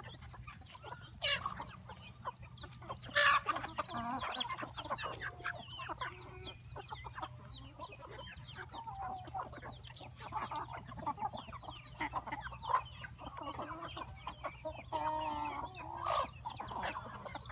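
A flock of chickens clucking and cheeping without pause, with a louder squawk about three seconds in. A steady low hum runs underneath.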